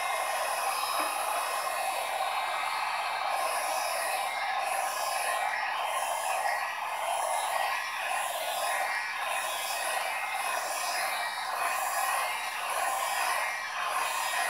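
Electric heat gun running steadily, its fan blowing a constant airy hiss.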